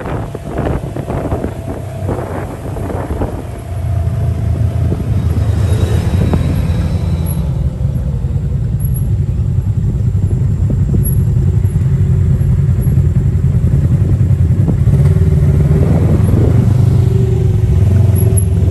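Off-road buggy's engine running as it drives along, a steady low drone that gets louder about four seconds in. Wind buffets the microphone at first.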